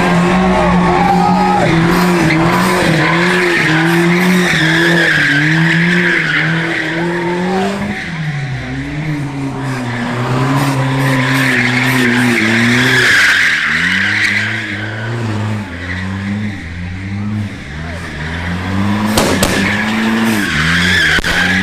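A car doing donuts: its engine revs rise and fall over and over while the tyres squeal on and off. A sharp crack sounds about nineteen seconds in.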